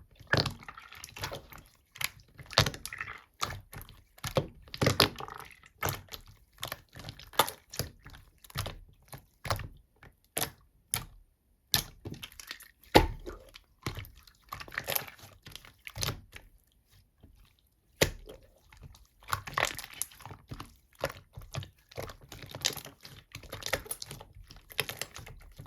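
Slime being squeezed, pressed and stretched by hand: irregular sticky pops, clicks and crackles, with a short lull about two thirds of the way through.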